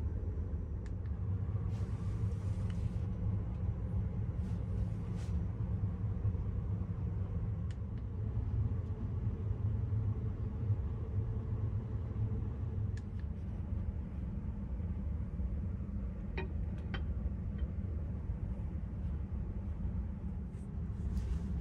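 Steady low rumble with a few faint clicks and a brief hiss, a constant mechanical or room background.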